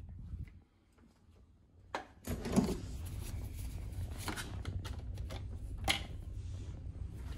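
Hotel room door opened and walked through, then a key card pushed into the wall card holder that switches on the room power, with a sharp click about six seconds in. A steady low hum runs underneath and drops out briefly near the start.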